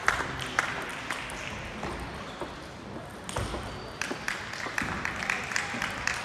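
Table tennis ball ticking off bats and the table during play. The ticks are sparse at first and come in a quicker run of rally hits from about three seconds in, with more ball clicks from neighbouring tables.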